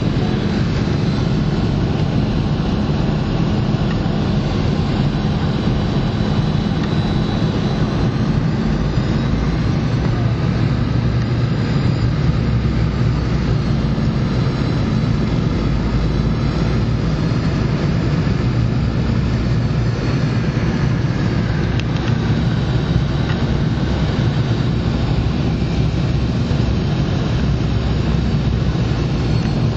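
Steady cabin noise inside a Boeing 717 airliner in flight: a constant low rumble of airflow and the drone of its jet engines, with no change in level.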